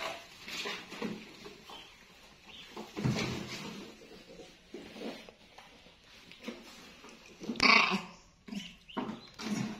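Pet baby monkeys squeaking and squealing as they scuffle, with one louder, shrill cry near the end.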